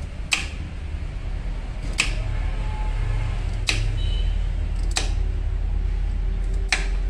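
Kitchen knife chopping through a white radish (daikon) onto a thick wooden chopping block: five sharp chops, about one every one and a half seconds, over a steady low hum.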